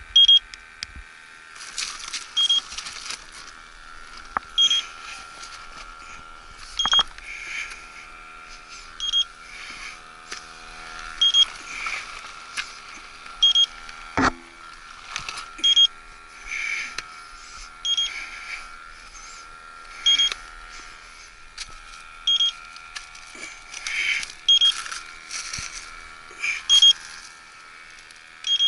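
Electronic refrigerant leak detector beeping steadily, one short high beep about every two seconds. Rustling and handling noises throughout, with a sharp knock about halfway through.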